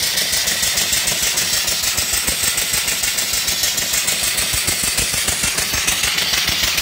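Home-built vertical single-cylinder steam engine running steadily on live steam at about 200–250 RPM, belted to an alternator. A fast, even beat of knocks sounds over a constant steam hiss.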